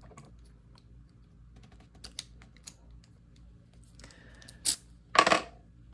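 Light clicks and a scrape of a brass padlock being handled while its new brass shackle is slid into the body, with a louder clack about five seconds in.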